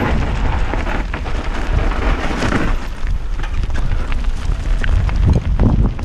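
Mountain bike riding down a dirt and gravel trail: a loud, steady rumble of tyres over the rough ground and wind buffeting the camera microphone, with scattered knocks and rattles as the bike goes over bumps.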